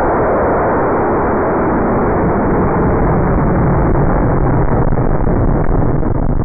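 Aerotech M1315 high-power rocket motor firing at liftoff, a loud, steady rushing noise close to the pad that grows somewhat deeper toward the end.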